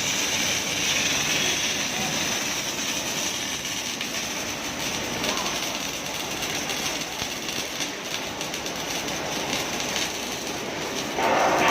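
Automatic MIG welding machine at work: a steady hiss with a fine, continuous crackle from the welding arc. A louder hum joins near the end.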